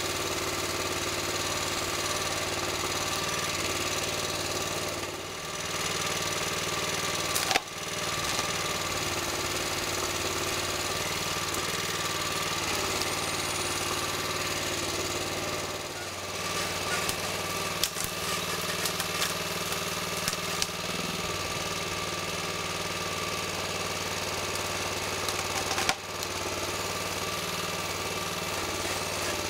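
Engine of a Kranman 1750 4WD compact forest machine running steadily while its crane works a TMK 150 felling head. Two sharp knocks cut through it, about a quarter of the way in and near the end, with a spell of small clicks in the middle.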